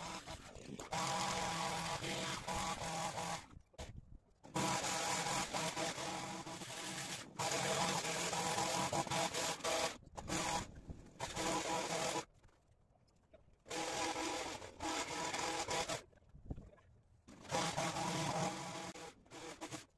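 Petrol long-reach hedge trimmer with a two-stroke engine running hard as it cuts, in repeated bursts of one to three seconds with short quiet gaps between them.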